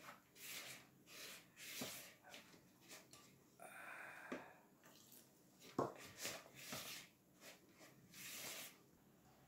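Faint scraping and stirring of a spatula through wet flour dough in a plastic mixing bowl, in a run of short strokes. About four seconds in, a brief pour of water from a plastic cup into the bowl, and a sharp knock near six seconds.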